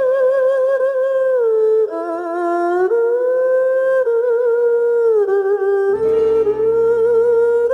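Background music: a slow, single melody line with vibrato, gliding between long held notes, joined by low accompanying chords about six seconds in.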